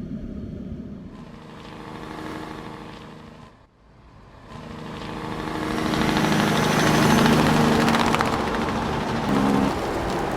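Harvest machinery engine running steadily with a rushing noise over it. The sound drops out sharply a little under four seconds in, then returns louder.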